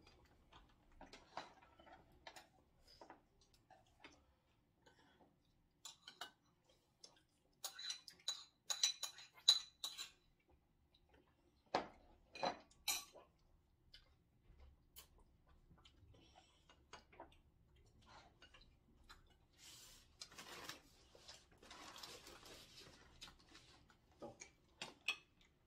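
Spoons and chopsticks clinking and scraping against ceramic bowls and plates at a meal, scattered light clicks with a run of ringing clinks about a third of the way in and a few sharper knocks just after. A soft rustle follows a little later.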